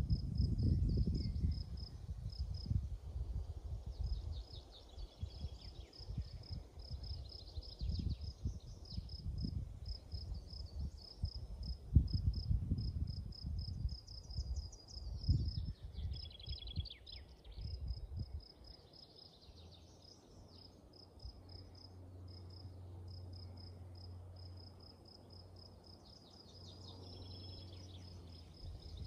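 An insect chirping steadily at a high pitch, about five chirps a second, with a few short bird-like trills about halfway through and near the end. A low, gusty rumble on the microphone runs through roughly the first two-thirds, then gives way to a faint steady low hum.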